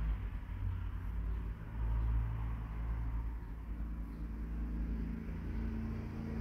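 A vehicle engine running with a low, steady rumble.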